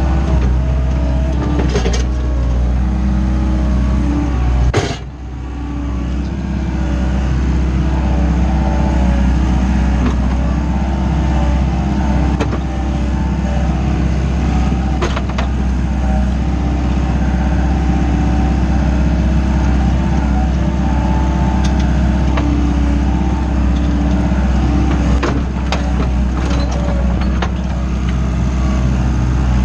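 Wacker Neuson 901s skid steer loader's 50 kW diesel engine running steadily, heard from inside the cab. The sound dips briefly about five seconds in, and a few sharp knocks and rattles come through as the machine works and drives over dirt.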